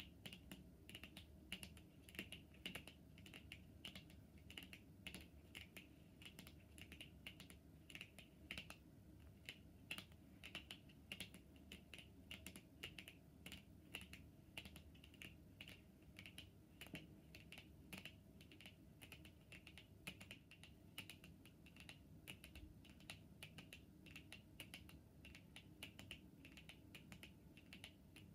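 Long natural fingernails tapping on tarot cards: faint, light clicks, a few a second in an uneven rhythm.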